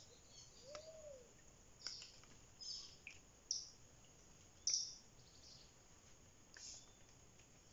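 Wild birds calling: scattered short, high chirps, the loudest about three and a half and nearly five seconds in, with one low note that rises and falls about a second in.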